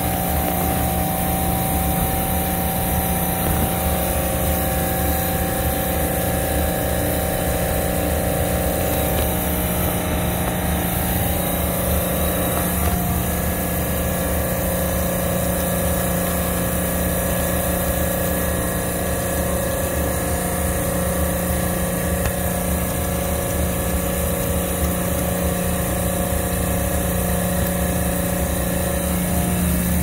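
Refrigeration machinery running with a steady, unchanging hum.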